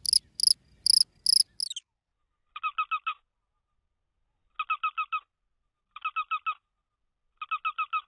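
Chirping, bird- or cricket-like: rapid high chirps for about a second and a half, ending in a falling chirp. Then four short bursts of five quick chirps each, a second or so apart, with dead silence between them.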